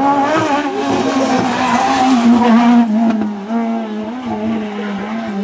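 Rally car engine running hard as the car passes, with a loud rush of noise over it. About two seconds in, the engine note steps down in pitch as the car slows into a bend.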